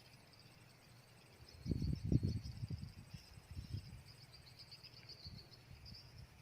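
Crickets or other insects chirping steadily, with a burst of low rumbling thumps about two seconds in that fade out over the next few seconds.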